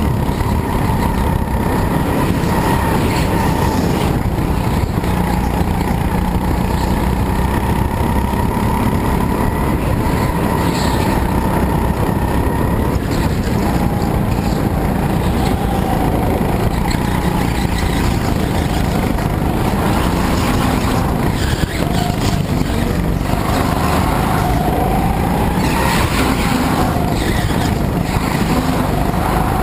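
Go-kart engine running under load, heard from onboard the kart. Its note holds fairly steady, then dips and rises again several times in the second half as the kart slows and accelerates through corners.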